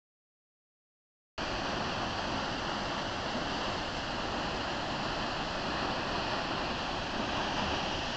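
About a second and a half of total silence, then the steady rushing of a waterfall.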